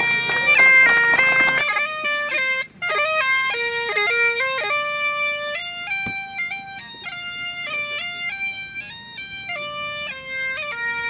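Great Highland bagpipes playing a tune over their steady drones, with a brief break about two and a half seconds in.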